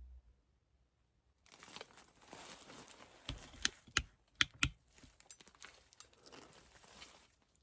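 Close crinkling and rustling handling noise that starts about a second and a half in, with a few sharp clicks near the middle.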